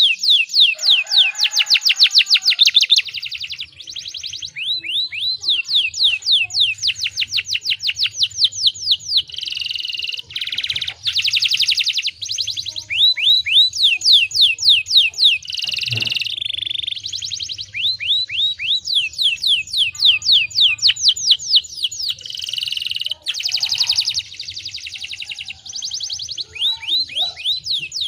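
Canary singing a long, unbroken song of fast trills: runs of quick, downward-sweeping whistled notes, some rolls slower and some very rapid, switching pattern every second or two.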